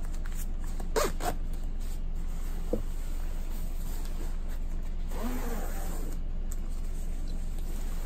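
Quilted nylon jacket rustling as it is handled and folded, with its zipper and a few light clicks, over a steady low hum.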